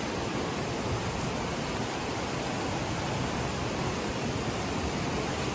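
Steady rush of a rocky stream cascading down a small waterfall.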